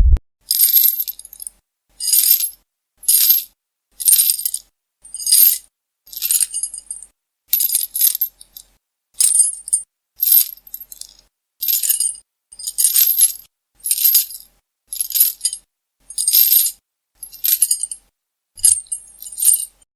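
A sound effect of short, high-pitched metallic jingling rattles, repeated about once a second with silence between them.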